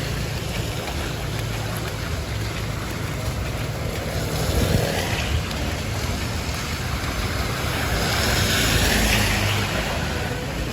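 A motor vehicle's engine running through floodwater, with rushing, splashing water noise that swells about halfway through and again near the end. Wind buffets the microphone.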